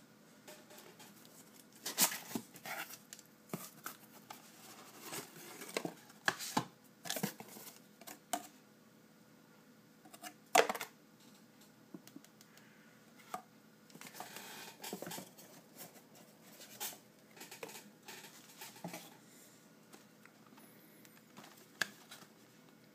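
A shipping package being opened by hand: irregular rustling and crackling of the packaging with sharp clicks and snaps, the loudest about 2 seconds and about 10 seconds in.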